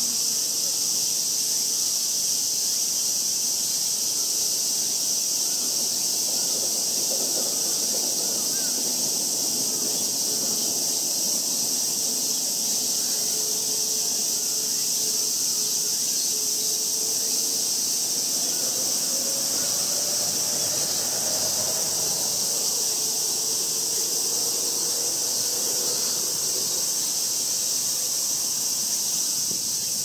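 Steady, high-pitched summer insect chorus. Through the middle, a faint low hum wavers slowly up and down in pitch.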